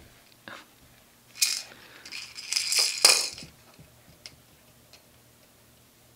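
A toy rattle shaken in a few quick bursts, from about a second and a half in to about three and a half seconds in, loudest near the end of the shaking.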